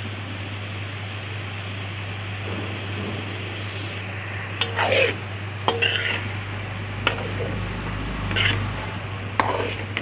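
A steady hiss, then from about halfway a metal spoon scraping and knocking against a steel pan in several strokes as penne pasta with vegetables is stirred.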